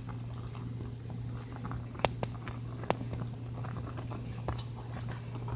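A utensil slowly stirring slimy okra in a cooking pot: soft wet squishing with a few sharp clicks of metal on the pot, over a steady low hum.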